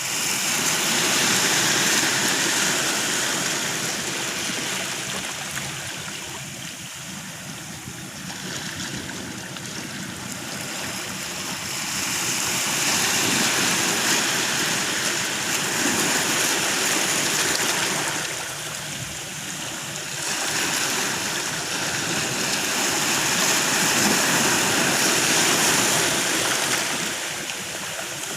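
Ocean surf: waves breaking and washing in, the rushing hiss swelling and fading in three slow surges.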